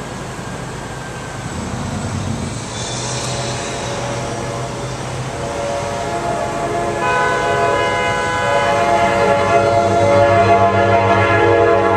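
Approaching passenger train's horn sounding a steady multi-note chord, starting about seven seconds in and growing louder, over the train's rising rumble.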